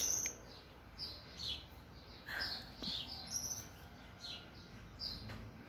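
Small songbirds chirping, short high notes coming about twice a second, with more than one bird calling.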